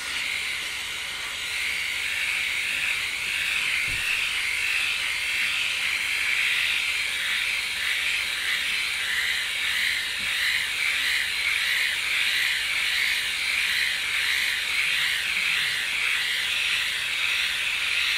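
Flawless Legs battery-powered electric leg shaver running with a steady high-pitched whir, its pitch wavering rhythmically in the second half as the head is worked over the skin of the leg.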